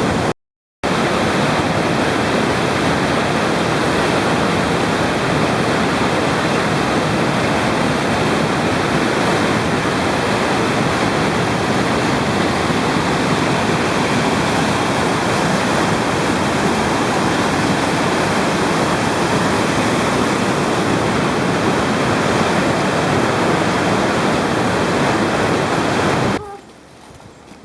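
Steady, loud rush of a waterfall's water pouring and churning. It cuts off suddenly near the end.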